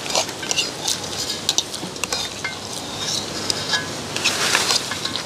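Metal spoon scraping and clinking against the inside of a large black cooking pot while rice is eaten straight from it, in quick, irregular scrapes and clicks.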